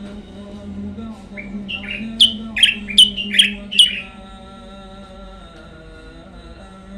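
A caged songbird sings one short phrase: a couple of rising lead-in notes, then five loud, sharp notes sweeping downward, each about half a second apart, over steady background music.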